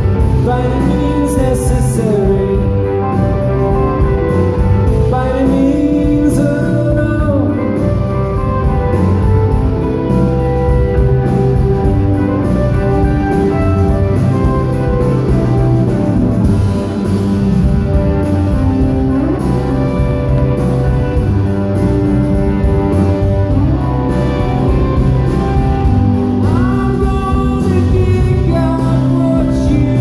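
Live band playing an instrumental passage: electric guitars over bass, loud and steady throughout.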